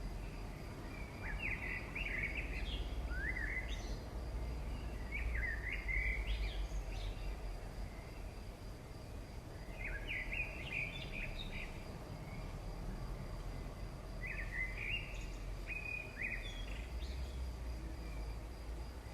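A small bird singing in short bursts of quick chirps, four or five phrases a few seconds apart, over a steady low rumble.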